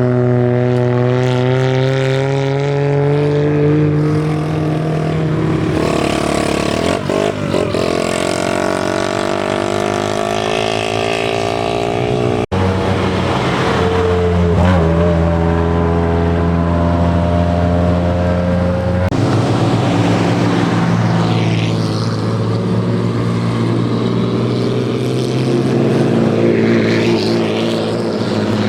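Old car engines running at low revs as cars drive in, the engine note slowly rising and falling. The sound breaks off abruptly about twelve seconds in and goes on with another engine.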